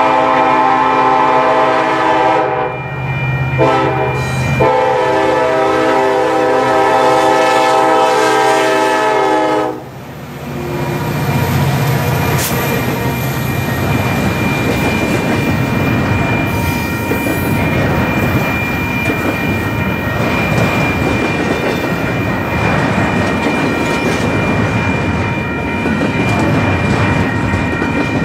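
Passing train's locomotive horn sounding a multi-note chord in three blasts: a long one, a short one, then one held about five seconds. It cuts off about ten seconds in, leaving the steady rumble and clatter of the train's wheels on the rails as it passes.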